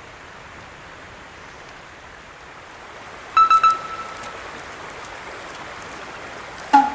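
Steady hiss of a shallow river running over stones. About three and a half seconds in comes a short, high two-note beep, and right at the end a brief lower tone.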